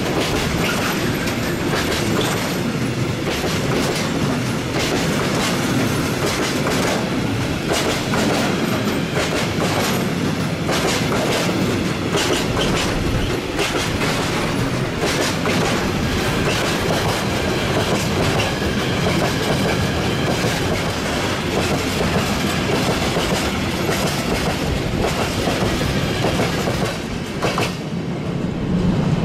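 A freight train of hopper wagons rolling past at close range: a steady rumble with wheels clattering over rail joints.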